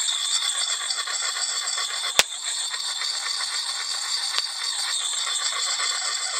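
Oiled coarse-grit side of a Lansky axe puck rasping along an axe blade in fast repeated strokes, sharpening the edge; one sharp click about two seconds in.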